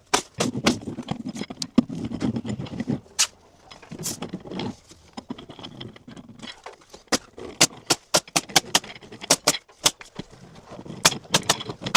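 Hands-on work noise: a run of irregular sharp clicks and taps, denser in the second half, with low rustling and scraping in the first few seconds.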